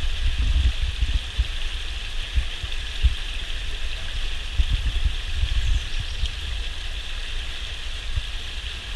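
Steady rushing of a river, with uneven low rumbling underneath.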